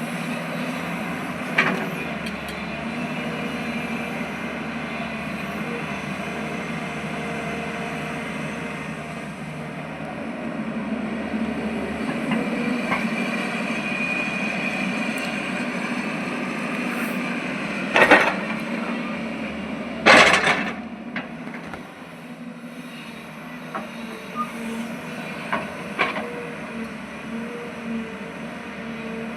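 Diesel engine of an earthmoving machine running steadily, with a sharp knock early on and two loud clanks past the middle, then a few lighter knocks near the end, as of a digging bucket striking earth and rock.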